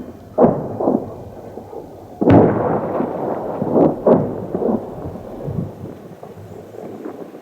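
Booms of combat at an airport battle: explosions and heavy weapons fire, each a sudden bang with a long rolling echo. The loudest comes about two seconds in, with others about half a second and four seconds in.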